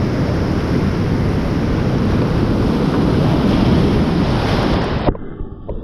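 Loud rushing whitewater of a steep creek drop heard from a kayak running it, with water and wind buffeting the camera microphone. About five seconds in there is a thump and the sound suddenly turns muffled, its hiss cut off, as the kayak plunges into the foam at the bottom and the camera goes under water.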